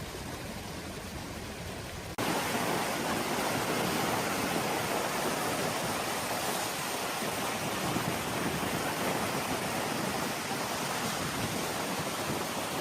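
Steady hiss of falling rain, cutting suddenly about two seconds in to a louder, brighter rush of rain that holds steady.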